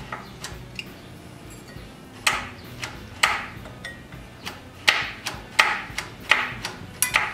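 Sharp metallic clicks and knocks from a screwdriver and the air-cleaner base plate worked against an aftermarket carburetor on a Tecumseh engine. They come about one a second from about two seconds in, each ringing briefly.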